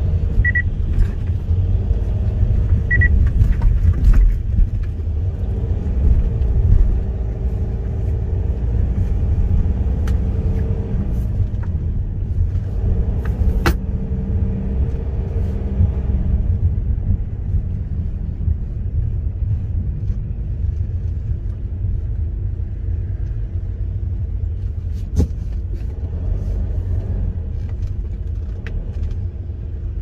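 Steady low road and engine rumble inside a car's cabin while driving slowly, with two brief high beeps in the first few seconds and an occasional sharp click.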